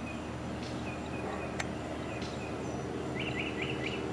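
Small songbirds chirping in short high notes, with a quick run of four chirps about three seconds in, over a steady low hum. A single sharp click about one and a half seconds in.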